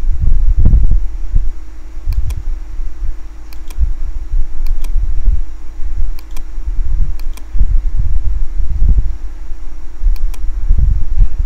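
Computer mouse clicking, mostly in quick double clicks every second or two, over a loud uneven low rumble and a steady hum.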